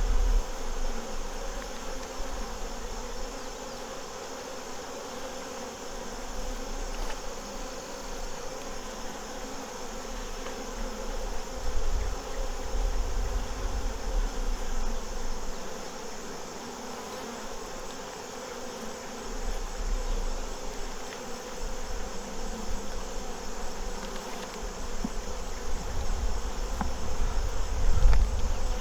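Honey bees buzzing steadily around an opened hive, a continuous drone from the colony.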